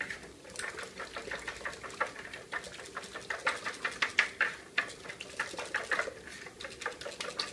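Wire whisk beating instant vanilla pudding and milk in a plastic mixing bowl: a quick, uneven run of light clicks and scrapes as the tines strike the bowl. The pudding is starting to thicken.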